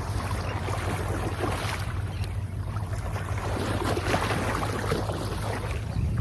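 Steady wind noise on the microphone over water, with a constant low rumble and an irregular hiss.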